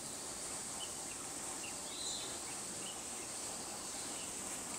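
Steady outdoor ambience: a constant high-pitched insect hiss with a few short bird chirps, one about two seconds in.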